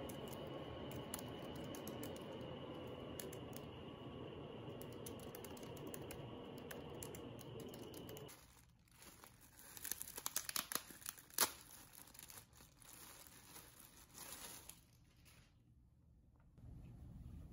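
Light typing on a laptop keyboard over a steady low hum. About halfway through, the hum gives way to packaging crinkling and tearing as a package is opened, densest a couple of seconds after the change, with one sharp snap.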